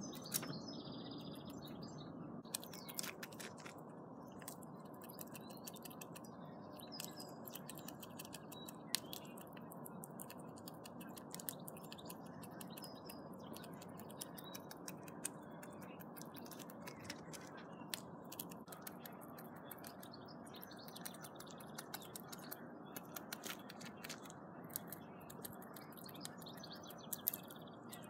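Grey squirrel gnawing a nut held in its paws, a long run of small sharp clicks and cracks of teeth on shell close to the microphone, with birds chirping faintly now and then.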